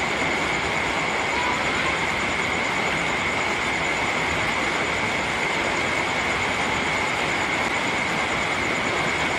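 Steady rain, a continuous even hiss that does not rise or fall, with a faint steady high-pitched tone running through it.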